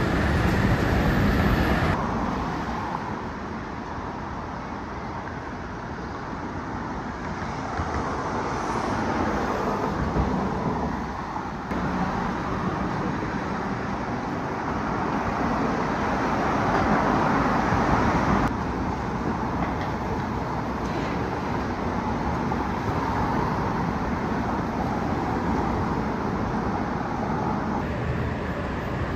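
Road traffic noise from a busy road, a steady rumble and hiss that swells as vehicles pass. The background changes abruptly a few times.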